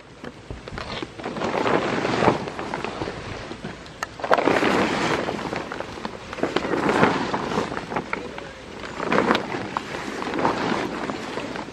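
Black plastic tarp crinkling and rustling as it is gathered and pulled by hand, in repeated surges of crackle.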